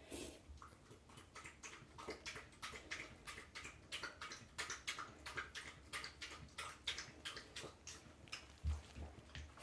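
A cat licking a dog's fur: a run of quick, wet licking clicks at about three a second. There is a soft low thump near the end.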